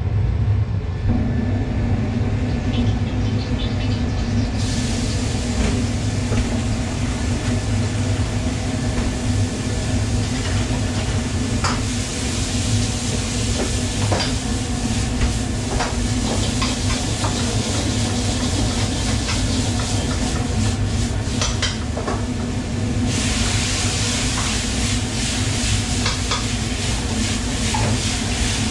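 Stir-frying in a wok on a commercial gas range: a steady low rumble of burners and extractor hood, with food sizzling in the wok from about five seconds in, growing louder toward the end. A few short metallic clinks of a utensil against the wok.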